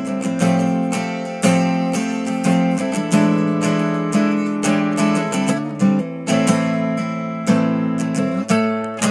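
Acoustic guitar playing blues, with strummed chords and plucked notes that ring on between strokes.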